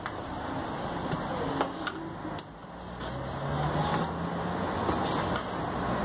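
Steady background noise with a low motor-like hum that swells about halfway through. A few light clicks and scrapes come from a knife tucking adhesive vinyl under the refrigerator's edge.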